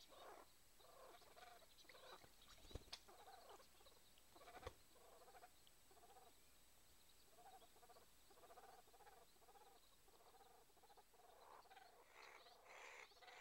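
Pāteke (brown teal) calling faintly, short repeated notes about two a second, with two brief clicks in the first few seconds.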